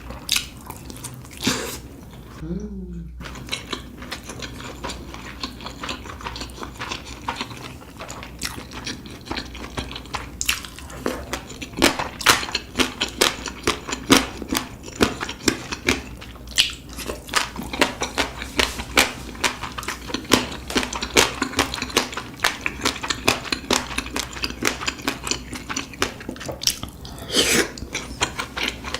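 Close-miked chewing and crunching of food: irregular crisp clicks, crackles and mouth smacks, growing denser and louder from about ten seconds in.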